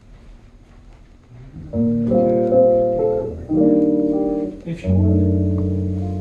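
Vinyl record playing on a hi-fi: a quiet lead-in groove for the first second and a half, then the instrumental introduction of a song, three held chords in turn.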